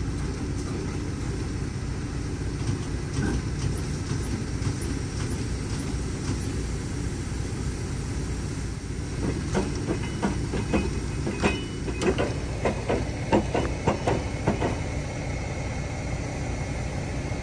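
A heavy vehicle's engine idling steadily, with a quick run of clanks and rattles from about ten to fifteen seconds in.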